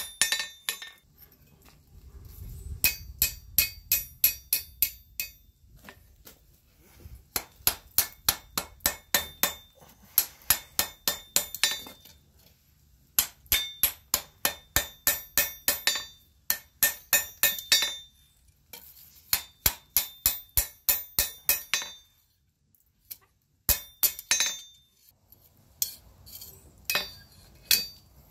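Hand hammer striking the red-hot eye of a strap hinge on an anvil: runs of sharp, ringing blows, about three or four a second, broken by short pauses.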